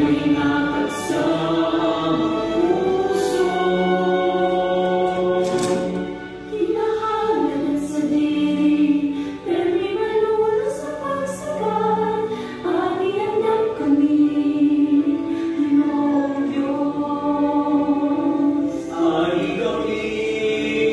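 A choir singing a Christian song, several voices holding long notes together in harmony.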